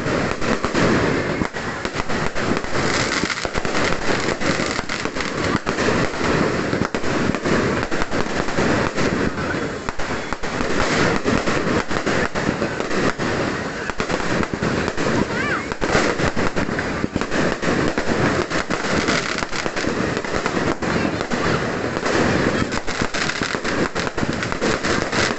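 Fireworks going off in a dense, continuous crackle of rapid bangs with no pause.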